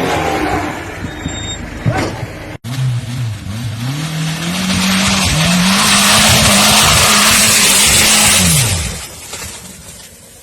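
Off-road vehicle's engine revving hard and held high for several seconds, with spinning tyres hissing loudly over it. The revs fall away near the end.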